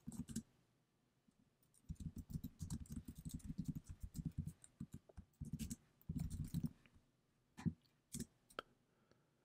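Faint typing on a computer keyboard: a quick run of keystrokes starting about two seconds in, a second short run, then a few single key presses near the end.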